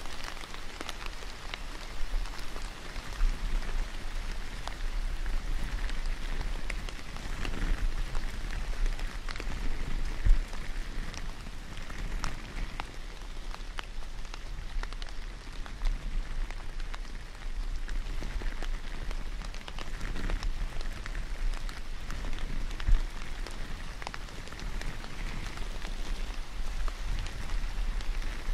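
White cotton gloves rubbed together close to the microphone, a dense, crackling rustle that swells and fades unevenly, with scattered sharper crackles.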